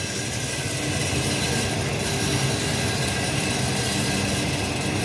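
Double-chamber popcorn roaster machine running, its rotating drum turning with a steady mechanical running noise as maize kernels are fed through it to roast.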